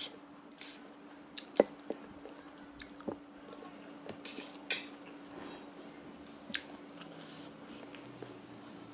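Someone eating hor mok: scattered clinks and taps of a utensil against a dish, with soft squishy chewing sounds, the sharpest click about a second and a half in. A steady faint hum runs underneath.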